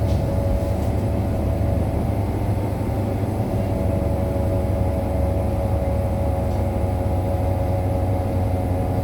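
Interior sound of a 2018 New Flyer XDE60 diesel-electric hybrid articulated bus: a steady low rumble with a steady mid-pitched whine held on one pitch. The whine is the unusual sound that sets this bus apart from others of its model.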